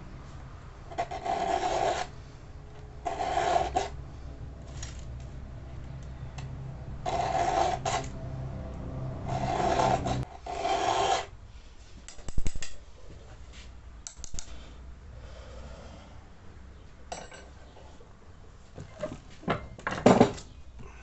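A round chainsaw file being drawn across the cutters of a Husqvarna 61 chain, sharpening it, in about five rasping strokes of roughly a second each. After that, scattered sharp clicks and knocks in the second half.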